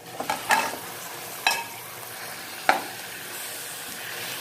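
Raw chicken pieces sizzling as they go into hot oil with sautéed onions and garlic in a metal frying pan. A metal spatula knocks sharply against the pan a few times as the pieces are stirred, and the sizzling grows steadier toward the end.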